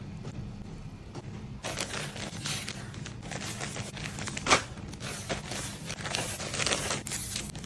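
Packaging being handled: paper or plastic crinkling and rustling in a dense crackle that starts about a second and a half in, with one sharp click about four and a half seconds in, over a steady low hum.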